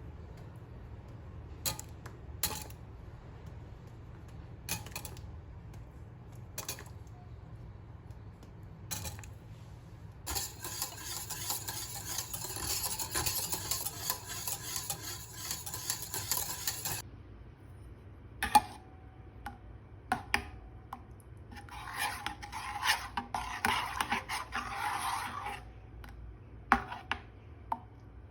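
Kitchen work with bowls and utensils: scattered clinks and knocks of dishes and cutlery, with a steady stirring or scraping noise lasting about seven seconds and a shorter one later.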